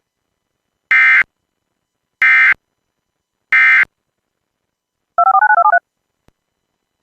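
Three short bursts of Emergency Alert System SAME data tones, the end-of-message code that closes the alert, each a fraction of a second long and about a second and a quarter apart. After them comes a quick string of about eight touch-tone (DTMF) beeps.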